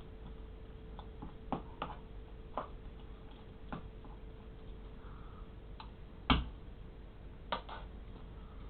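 Irregular light clicks and taps, with one louder knock about six seconds in, over a faint steady hum.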